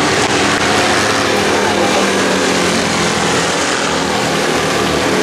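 Several 2CV cross racing cars' air-cooled flat-twin engines running hard together on a dirt track, a steady mix of engine notes.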